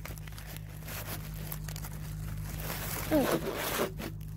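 Handling noise from a phone held in the hand, with fingers rubbing and rustling near its microphone. A brief vocal sound comes about three seconds in.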